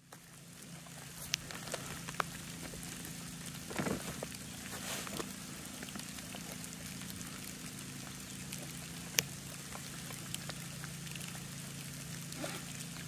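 Steady outdoor hiss over a low hum, broken by a few sharp clicks and a brief rustle as a carving knife is drawn from its leather sheath and the sheath is set down.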